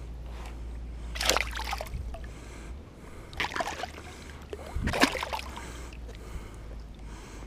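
Water splashing three times, about a second and a half apart: a small hooked pike thrashing at the surface. A steady low rumble runs underneath.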